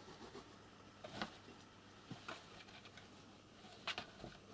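A few faint taps and rustles from a piece of cardboard and a blanket as a hand moves under them while kittens paw and pounce at it.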